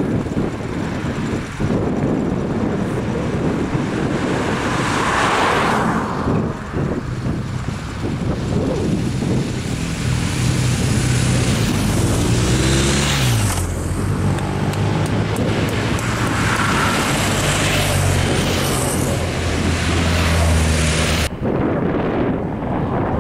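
Race-convoy motor vehicles passing close on a country road, a motorcycle's engine running loudly from about ten seconds in and dropping briefly in pitch, over steady wind rush on the microphone. The engine sound stops abruptly near the end.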